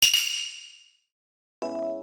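A sharp metallic ding that rings and fades away over about a second, followed by silence; near the end a music note begins and holds.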